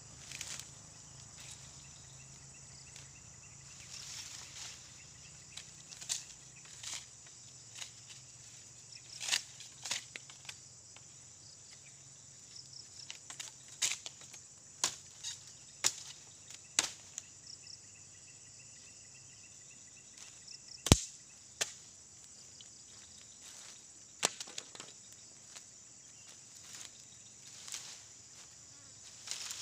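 Dry bamboo poles and dead brush being pulled out and handled: scattered cracks, knocks and rustles, the sharpest crack about 21 seconds in. Insects trill steadily and high underneath.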